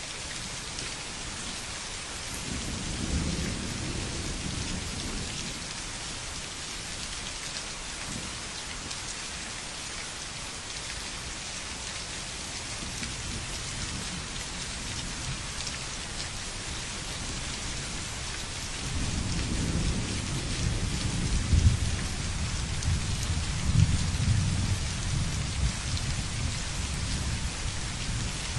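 Steady rain falling, with thunder rumbling low a few seconds in and again in a longer, louder roll from about two-thirds of the way through, with a couple of sharper cracks within it.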